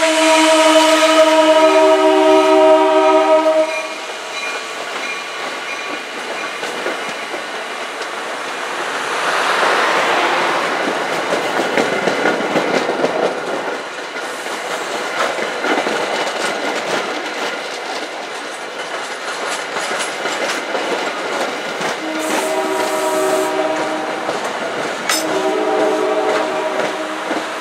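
Diesel commuter train's multi-chime air horn sounding a loud chord for about four seconds, followed by the clickety-clack of passenger coaches rolling past on the rails. Near the end the horn sounds twice more, shorter and fainter, from farther down the line.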